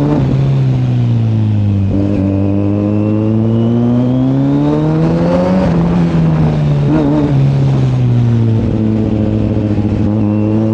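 Kawasaki Z900's inline-four engine pulling hard on the road, its pitch climbing through the gears with a sudden drop at each shift: one about two seconds in, a longer pull to a shift near six seconds in, then easing and climbing again near the end. The rider finds the exhaust note a little more open after the service.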